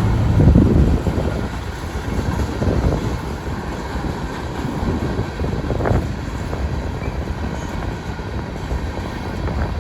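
Freight train of grain hopper cars rolling past, a steady rumble of wheels on rail with a few louder clanks from the cars, about half a second in, near three seconds and near six seconds.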